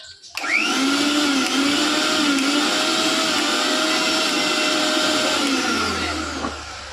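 Mixer grinder motor switched on about half a second in, spinning up quickly and running loud and steady at full speed, then switched off and winding down over about a second near the end.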